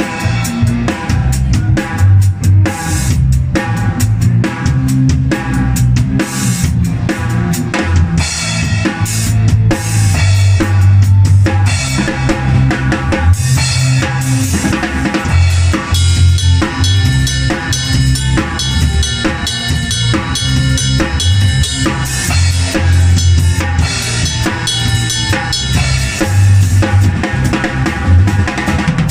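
Drum kit played up close in a full-band song, kick and snare driving a steady beat with cymbals, over sustained bass notes and held chords.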